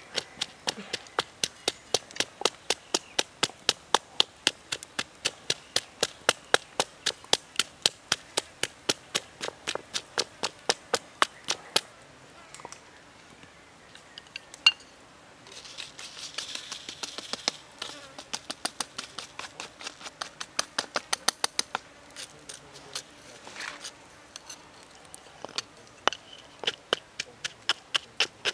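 Wooden pestle pounding chilies and herbs in a stone mortar: sharp knocks, about three a second. About halfway through, the pounding stops for a few seconds and there is a short hiss as salt is poured in. Then the pounding resumes, less regular.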